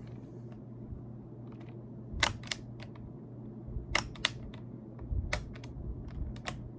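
Sharp plastic clicks and snaps in a few small clusters, from a puller tool prying switches and keycaps out of a hot-swappable mechanical keyboard, over a faint steady low hum.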